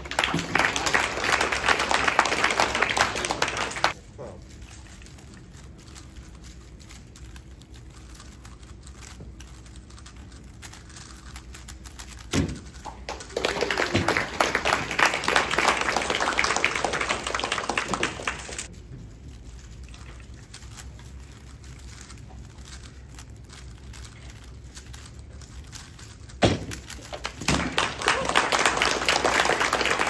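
Rapid clacking of 3x3 speedcubes being turned at speed during solves, in three bursts of about four to five seconds each. A single knock comes shortly before the second and third bursts.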